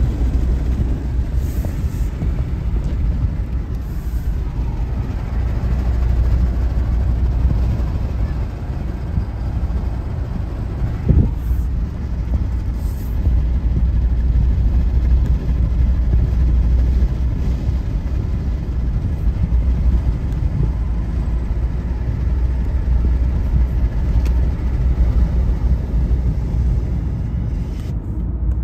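Steady low road and engine rumble inside a moving car's cabin, with one short thump about a third of the way through.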